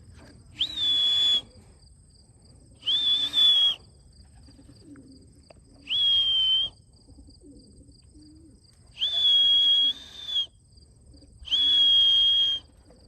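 Five short whistles about three seconds apart, each rising quickly into a steady high note, blown to call returning racing pigeons down to the loft. A faint steady chirring of crickets runs underneath.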